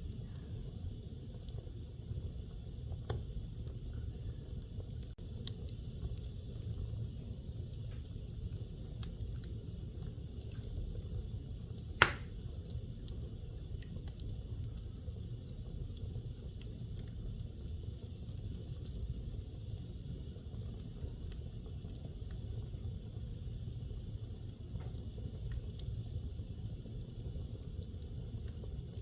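Wood fire burning in a fireplace: a steady low rumble of the flames with scattered small crackles, and one sharp loud pop about twelve seconds in.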